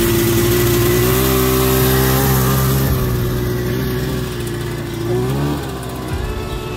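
Homemade racing lawn tractor's 440 twin-cylinder two-stroke snowmobile engine running hard as it drives off. About five seconds in it revs up with a rising pitch, and it grows fainter as it pulls away.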